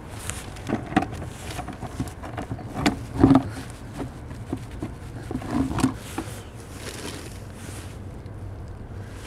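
Irregular knocks, scrapes and rustles of a plastic bucket and groundbait bag being handled on concrete steps, a few louder knocks among them, over a steady low rumble of road traffic.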